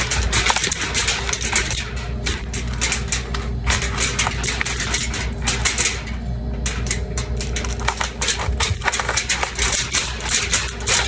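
Knife cutting into the core of a raw cabbage: a busy run of short, crisp crunches and cracks as the blade works around the stem to hollow it out.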